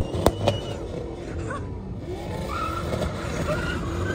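A car engine revving up and down while the car does donuts, growing louder in the second half. Two sharp clicks sound near the start.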